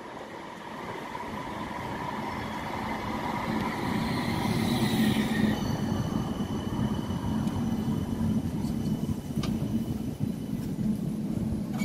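West Midlands Metro CAF Urbos 3 tram approaching on street track and drawing past close by: a rumble that grows louder, with a hiss building about four to five seconds in, then a steady high-pitched whine.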